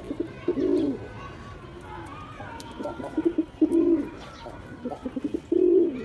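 Male domestic pigeon cooing: low, rounded coos about half a second in, a run of them around three and a half seconds, and a loud one near the end.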